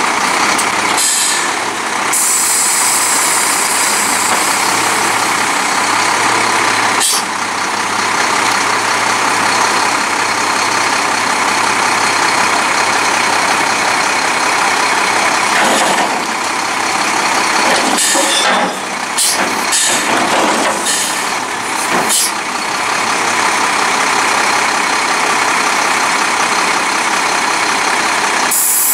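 Volvo WX64 front-loader garbage truck with a Maxon body running its engine and hydraulics as the front forks lift a wheeled cart over the cab and tip it into the hopper. It is a loud, steady mechanical noise, with a low hum in the first half and several short breaks and changes in the middle.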